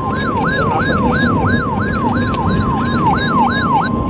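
Emergency Alert System attention signal for a severe thunderstorm warning: a steady single alert tone with a siren-like wail sweeping up and down about three times a second over it, on a noisy background. The wail stops near the end while the steady tone holds a moment longer.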